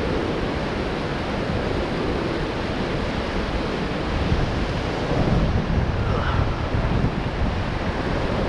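Whitewater of a class III river rapid rushing steadily, with wind rumbling on the microphone, stronger in the second half.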